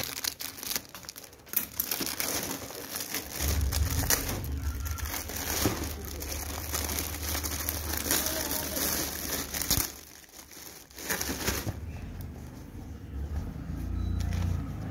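Clear plastic wrapping crinkling as hands work it off a pair of sneakers, with a short lull about ten seconds in.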